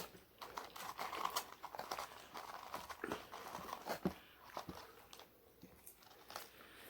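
A person chewing food close to the microphone: irregular wet mouth clicks and crunching bites, busiest in the first few seconds.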